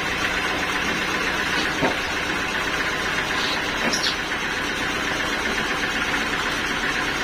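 Sawmill machinery running steadily, an even mechanical noise with a few faint knocks.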